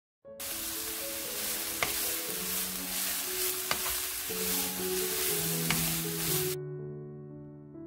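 Shredded bellflower root (doraji) sizzling in oil in a frying pan as it is stirred with a wooden spatula, with three light clicks about two seconds apart. The sizzling cuts off about two-thirds of the way through, leaving soft piano music.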